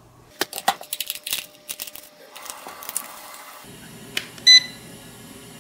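Quick plastic clicks and knocks as AAA batteries and the battery cover go into a toy-grade RC transmitter, then about four and a half seconds in a single short electronic beep as the Eachine E130 transmitter is switched on.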